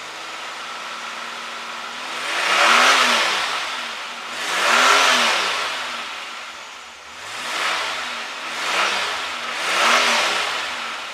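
1987 Pontiac Fiero GT's 2.8 V6 running through its stock exhaust: it idles, then is revved five times, each rev rising in pitch and dropping back, the first two the loudest.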